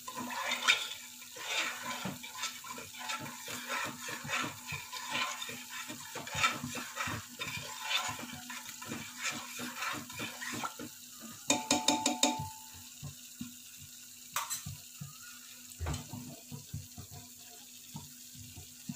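Hand stirring soaked rice in milk and water inside an aluminium pressure cooker: liquid sloshing and swishing with small knocks against the metal pot. About twelve seconds in there is a brief metallic clatter with a ringing tone, after which the stirring thins to a few scattered knocks and a thump.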